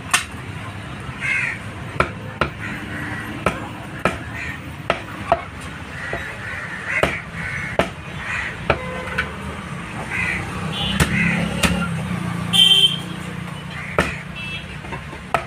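Heavy butcher's cleaver chopping pork on a thick round wooden chopping block: sharp chops at irregular intervals, roughly one every half second to second and a half.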